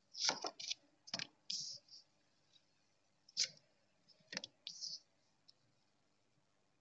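Osho Zen tarot cards being drawn and laid down on a cloth-covered table: a handful of sharp card snaps mixed with short swishes of cards sliding, ending about five seconds in.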